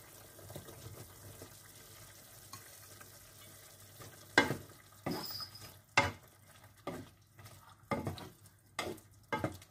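Faint sizzle of chicken and carrots simmering in a pan. From about four seconds in, a spatula stirs the food, knocking against the pan about once a second.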